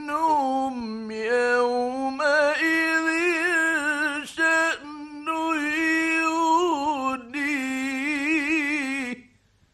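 A man reciting the Quran in the ornate, melodic mujawwad style. He holds long notes that waver in pitch and sings them in several phrases separated by short breaths, then stops about nine seconds in.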